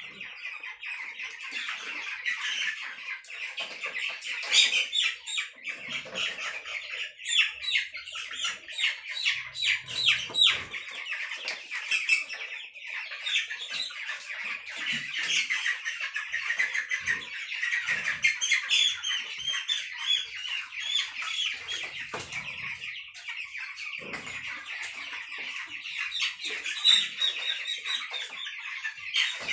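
A flock of young broiler chickens peeping and chirping continuously, with some squawks and occasional low thumps as birds are handled into a plastic crate for weighing.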